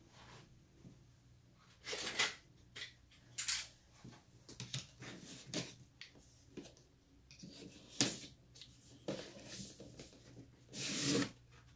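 Utility knife slitting the tape seams of a cardboard box in short, irregular scraping cuts, mixed with cardboard rustling as the box is handled; the longest scrape comes near the end.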